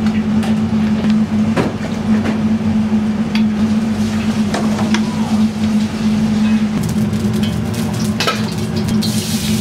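Metal ladle clinking and scraping against pots and a wok over a steady low kitchen hum. Near the end, food goes into hot oil in the wok and starts sizzling.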